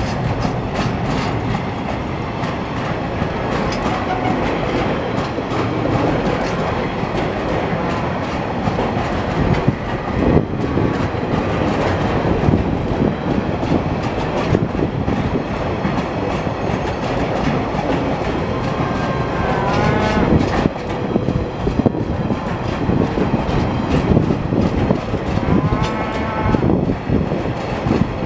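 Empty log wagons of a TasRail freight train rolling past, a steady rumble of steel wheels on rail with clicking from the wheels. Cattle moo twice in the second half.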